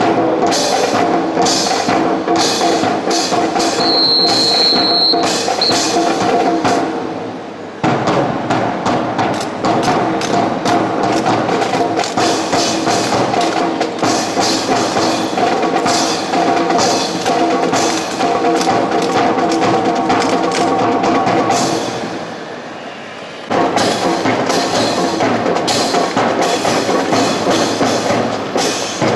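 Music with a strong drum and percussion beat, with two short lulls: one about eight seconds in, and a longer one of about a second and a half near 22 seconds in.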